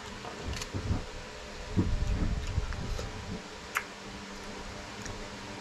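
Cooked oysters being picked out of their shells by hand: soft handling noises and a few sharp clicks of shell, the sharpest about two-thirds of the way through, over a steady fan hum.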